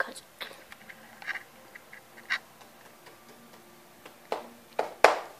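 Scattered clicks and taps of a computer keyboard and mouse being worked, a few at a time, with the sharpest knocks about four to five seconds in.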